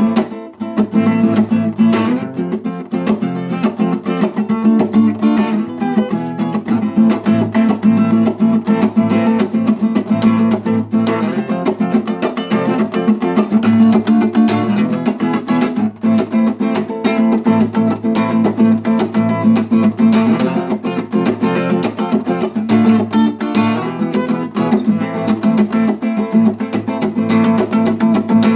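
Acoustic guitar strummed and picked continuously, a steady instrumental jam with dense, quick strokes.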